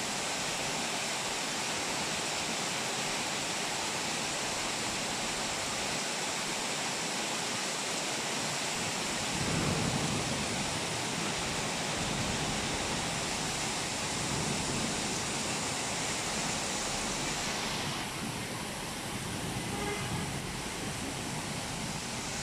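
Heavy rain pouring down in a steady, dense hiss. A deeper rush swells for a few seconds about ten seconds in, and the high hiss thins a little near the end.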